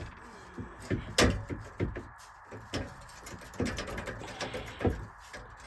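Scattered knocks and clanks from a steel exhaust pipe and muffler being worked and pulled loose by hand, the sharpest knock about a second in and another near the end.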